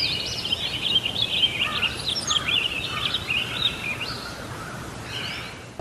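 Many small birds chirping and twittering over a steady background hiss, the sound fading in at the start and dying away near the end.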